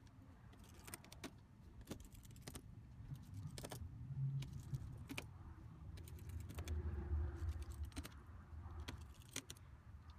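Irregular small clicks and taps of phone parts and tools being handled during reassembly, over a low rumble of handling noise that swells twice.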